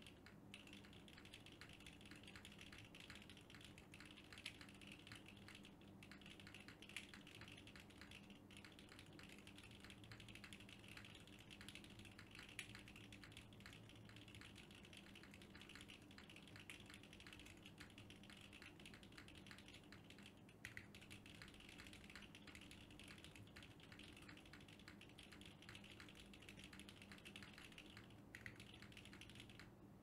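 Fast, continuous two-handed typing on a Venn by Gok mechanical keyboard built with a carbon-fibre plate, leaf-spring sandwich mount, no case dampening, Bolsa Supply Zaku switches and GMK Dots keycaps: a dense stream of key clacks with a few brief pauses.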